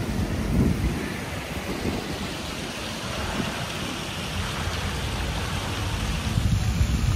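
Water from a fountain spilling over the rim of its upper tier and splashing steadily into the basin below.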